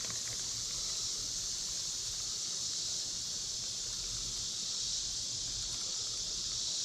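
Steady chorus of late-summer insects, an even high-pitched drone that holds unchanged throughout.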